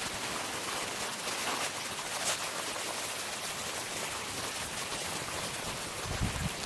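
Steady hiss of light rain falling, with a few faint drop ticks. Low wind buffeting on the microphone starts near the end.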